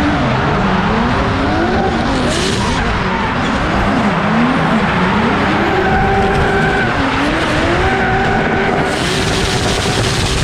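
Drift car's engine revving up and down repeatedly as it slides sideways, over the steady hiss of tyres sliding on concrete.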